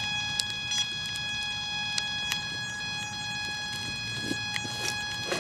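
A steady high-pitched electronic whine with a stack of evenly spaced overtones, from the electric RC plane's electronics while it lies still with the motor stopped, with scattered light ticks and a low rumble underneath.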